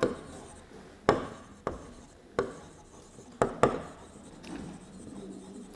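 Stylus writing on the glass screen of an interactive display board: a handful of sharp, irregularly spaced taps with faint scratching between them.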